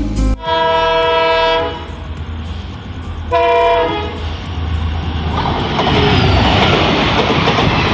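Train horn sounding two blasts: a long one of about a second and a half, then a short one about three seconds in. Then the rumble and clatter of the moving train builds and holds.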